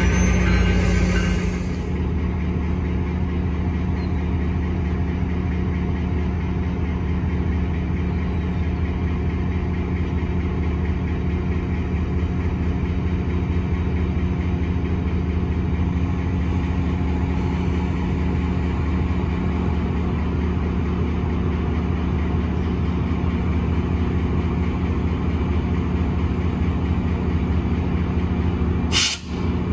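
VRE diesel-electric passenger locomotive's engine running at a steady speed, a constant low drone with a steady pitch. It is louder for the first second or two, then holds level, with a single sharp click near the end.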